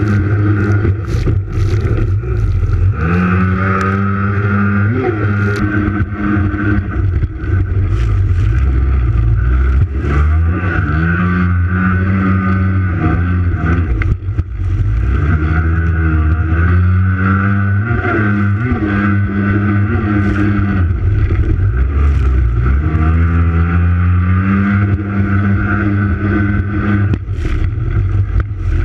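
Racing jet ski's engine running hard, heard from a camera mounted on the hull; its pitch climbs four times as it accelerates and then holds steady at high revs. Water spray hisses and slaps against the hull over the engine.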